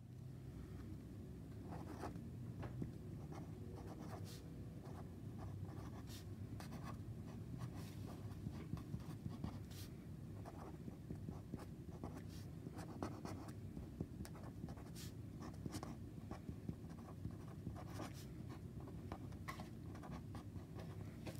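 Felt-tip pen scratching across paper in many short strokes as letters are written by hand, over a low steady hum.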